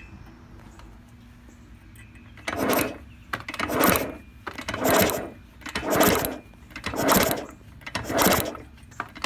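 1983 Yamaha PW80's two-stroke engine being kicked over with the kick starter, seven even strokes about a second apart starting a couple of seconds in, without firing: a spark check with the fuel tank still off.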